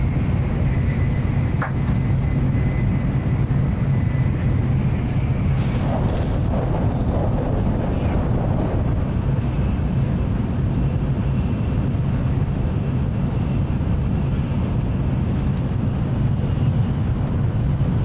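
Nozomi Shinkansen bullet train running at speed, heard inside the passenger car: a steady low rumble with a faint high whine above it. A brief hiss comes about six seconds in.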